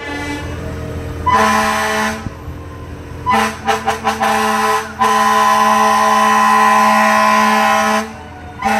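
Fire truck air horn blowing: one blast, then a quick string of about five short toots, then a long blast of about three seconds, and another blast starting near the end. A deep engine rumble runs underneath.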